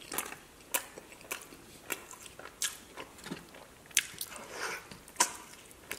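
Close-miked eating sounds: wet chewing and lip smacks as a sauced chicken wing is bitten into, a run of sharp mouth clicks roughly every half second.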